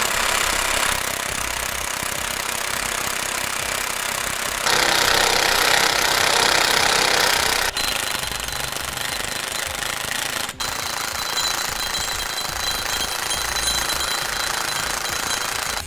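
Cordless impact wrench hammering continuously as it runs down the nuts on the axle clamp's bolts, louder for about three seconds in the middle, with two momentary breaks.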